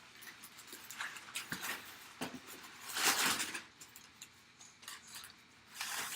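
Rustling and scraping of packaging as a framed photo is unwrapped and handled, in irregular bursts, the loudest about three seconds in and another near the end.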